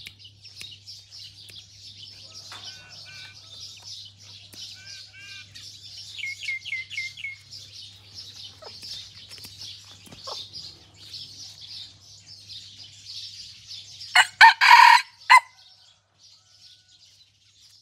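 A junglefowl-type rooster crows once, about three quarters of the way in: a short, loud crow broken into a few parts. Under it runs a steady high-pitched chirring, with a quick run of short bird chirps in the middle.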